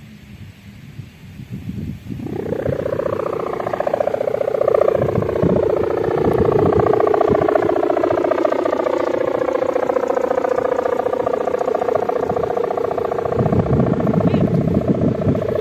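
A sendaren kite hummer droning in the wind with a buzzy, bulldozer-like hum. It starts about two seconds in and holds steady with a slight wavering in pitch, while wind buffets the microphone.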